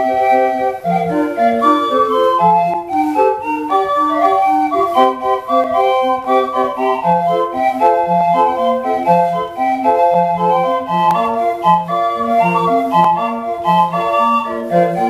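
Senior 20 busker pipe organ playing a lively tune from its autoplay, its bellows pumped by a 12-volt scooter motor belted to the crank wheel. A melody runs over low bass notes on a regular beat.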